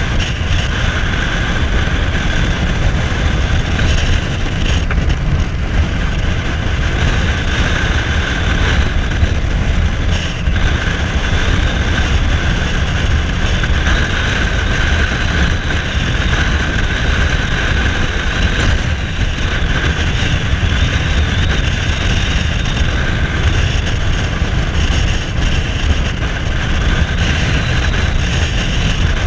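Cruiser motorcycle riding at a steady cruising speed, its engine running without a break under heavy wind rush on the microphone.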